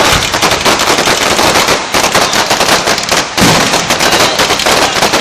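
Aerial fireworks going off in rapid, dense crackling and popping, like a string of small shots. A heavier bang comes right at the start and another about three and a half seconds in.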